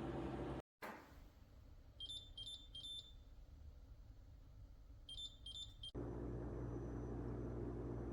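Two quick sets of three short, high-pitched electronic beeps from a single-serve pod coffee maker, set between stretches of a steady low appliance hum that stops and restarts abruptly.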